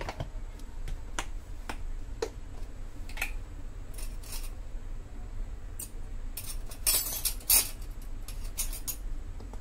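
Kitchen utensils being handled: scattered clicks and clinks of metal, then several short scraping or rustling noises, the loudest about seven seconds in.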